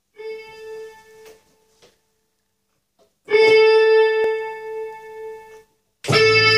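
Electronic arranger keyboard sounding a single held note twice, each time fading away, then a fuller accompaniment with bass coming in near the end.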